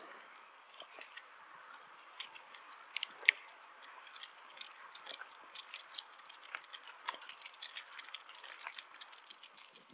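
Bicycle in motion: irregular light clicks and rattles over a soft steady hiss, with two sharper clicks about three seconds in.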